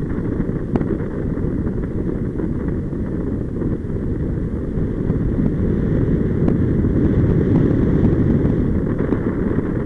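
Wind buffeting an action camera's microphone in paraglider flight: a steady low rumble of rushing air, a little louder in the second half, with a few faint ticks.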